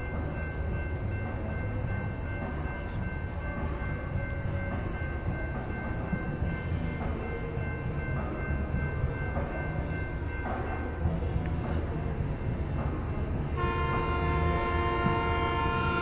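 Diesel freight train rumbling steadily as it approaches, then, about three seconds before the end, the lead locomotive's air horn sounds one long chord blast, the loudest sound here. The horn belongs to a Norfolk Southern high-hood EMD GP-series road switcher.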